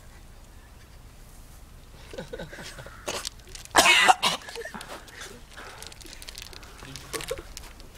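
A young man gagging and coughing on a mouthful of tofu, with one loud, harsh retching cough about four seconds in and smaller coughs later.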